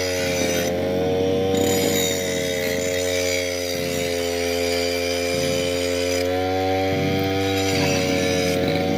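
Brush cutter (motorised grass cutter) engine running steadily at high speed, its pitch sagging slightly a couple of times as it works.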